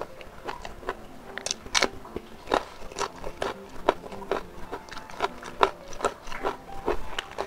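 Close-miked chewing of a mouthful of spicy smoked beef (sei sapi) and rice, with crisp, irregular crunches about twice a second.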